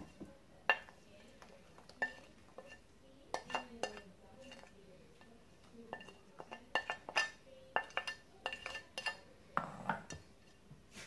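A wooden spatula scraping and knocking spices off a ceramic plate into a cooking pot: irregular clinks and taps, some with a short ring from the plate, busiest in the second half.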